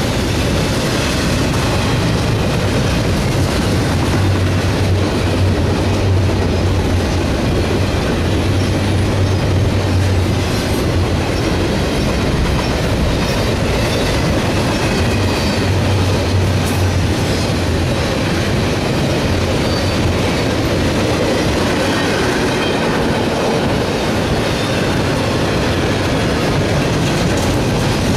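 Double-stack intermodal freight train's loaded well cars rolling past: a steady, loud rumble and clatter of steel wheels on the rails.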